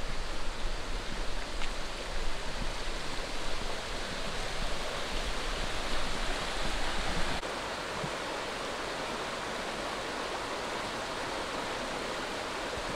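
Steady rushing of flowing water, like a stream. It is rougher and rumbling at first, then turns smoother and more even about halfway through.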